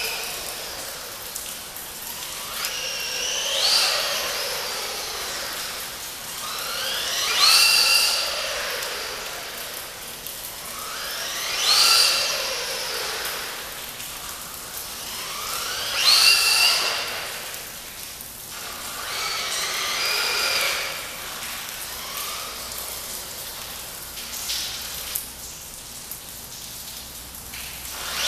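Brushless electric motor of an Aleko L212 Pro RC truck whining as the truck speeds round and past, about every four seconds. On each pass the high whine climbs in pitch and swells, then fades to a steady hiss.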